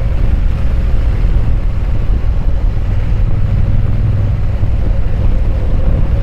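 Triumph Bonneville parallel-twin engine running steadily while riding, with wind noise over it.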